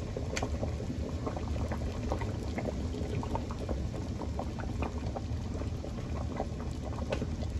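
Chicken and broth at a rolling boil in a large enamel stockpot: a steady low rumble of bubbling with many small irregular pops.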